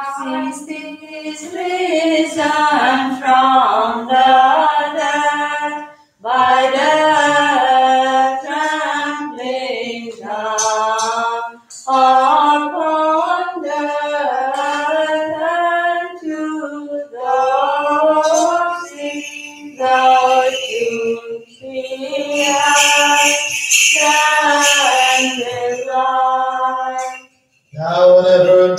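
Unaccompanied Greek Orthodox liturgical chant, a melodic vocal line sung in phrases with brief breaks between them.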